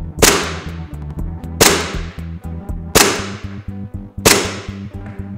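Green-gas airsoft pistol, a 2011 Combat Master replica, firing four single shots a little over a second apart, each a sharp crack that fades quickly.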